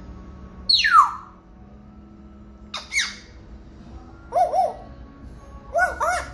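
African grey parrot calling: a loud whistle falling steeply in pitch about a second in, a short sharp squawk a couple of seconds later, then two clusters of quick, short repeated notes near the end.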